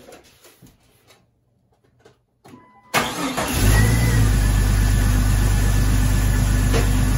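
Jeep Cherokee's inline-six engine starting about three seconds in: it catches quickly, runs briefly louder, then settles into a steady idle.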